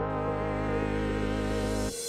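Background music: a slow, sustained chord of held tones that cuts off just before the end.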